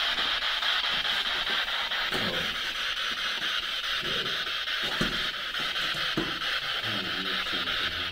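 Steady radio static from a Spirit Box sweeping through stations, its hiss finely chopped into quick regular pulses, with a few faint muffled sounds underneath.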